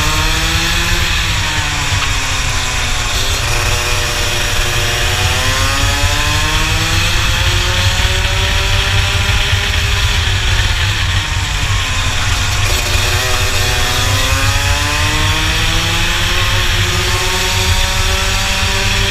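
Rotax two-stroke kart engine at racing speed, its pitch climbing and falling three times as the revs rise on the straights and drop into the corners, over wind buffeting on the onboard microphone.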